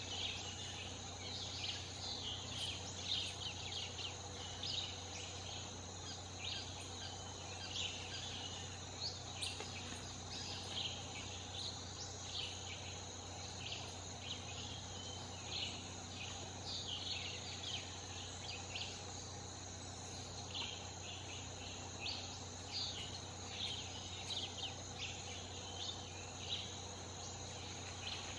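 Tropical rainforest ambience: a steady high-pitched insect drone with many short high chirps scattered throughout, over a low steady hum.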